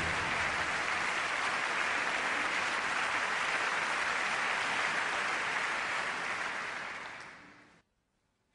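Audience applauding steadily, then fading out about seven seconds in.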